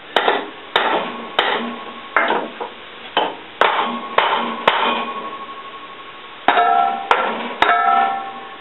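Hammer striking the rusted steel running gear of an old Case crawler, about a dozen irregular blows with a pause midway; several blows leave the metal ringing.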